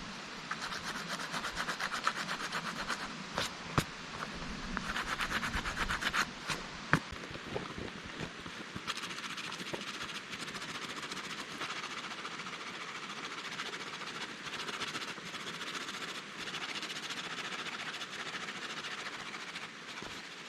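Pumice stone rubbed rapidly back and forth over the flesh side of a dried fur pelt, a rhythmic rasping in two bursts that sands and softens the hide in the last stage of tanning. A few sharp clicks fall between the bursts. From about nine seconds in, the steady rushing of the mountain stream carries on alone.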